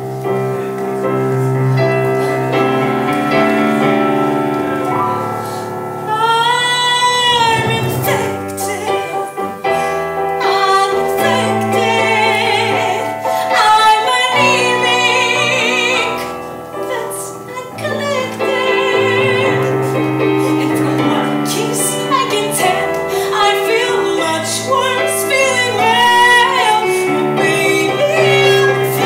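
A young woman singing a solo musical-theatre song in a wavering, held voice over steady instrumental accompaniment.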